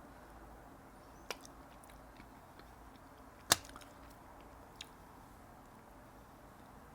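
A person quietly chewing food, with a few sharp crunches or clicks, the loudest about three and a half seconds in.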